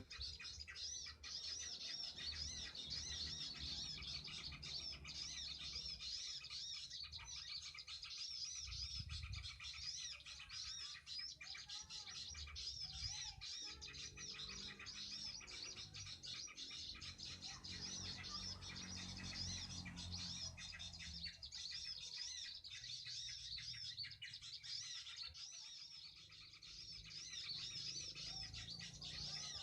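Small songbirds chirping continuously in high, quick, rising-and-falling notes, faint, over a low rumble.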